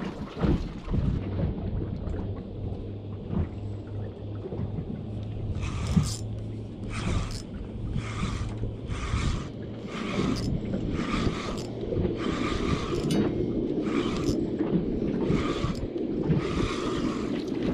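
Spinning reel being wound in against a fish on a bent rod, whirring in short bursts about once every three-quarters of a second as the handle turns. A low rumble of wind and water runs underneath.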